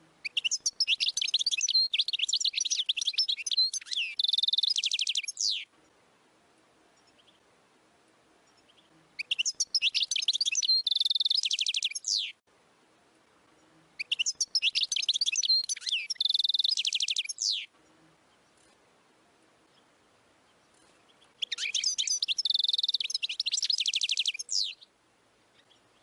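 European goldfinch singing: four long phrases of quick, high twittering notes, each closing in a fast trill, with pauses of a few seconds between phrases.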